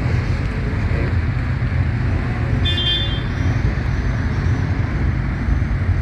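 A group of motorcycle engines running together in a loud, steady rumble, with a short vehicle horn toot about halfway through.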